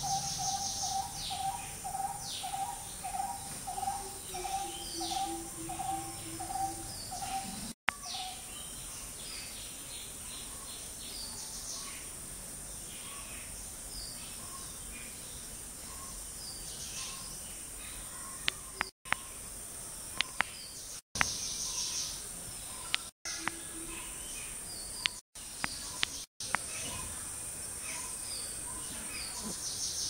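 Small birds chirping over a steady high insect hiss. For the first seven seconds one bird repeats a pitched note about twice a second, and a lower repeated note joins it for the last few seconds of that run. Later the sound cuts out for an instant several times, with a few sharp clicks.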